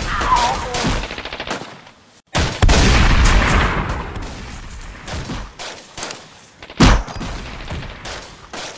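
Rapid gunfire in bursts of shots. It breaks off briefly about two seconds in, then comes back as a loud sustained volley that slowly dies away, and there is another sharp loud shot near the end.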